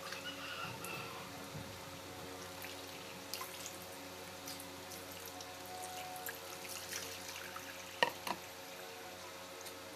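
Light splashing and dripping of water as a small dog is washed by hand in a plastic basin, with a couple of sharper knocks about eight seconds in, over a steady low hum.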